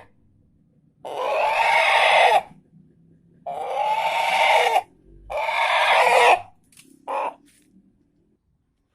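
Chicken giving loud, drawn-out calls: three long cries about a second and a half each, spaced roughly two seconds apart, then one short cry.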